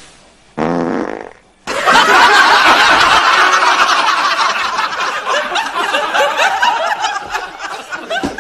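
A fart, about a second long, low and fluttering, followed by loud, sustained audience laughter that starts just after it.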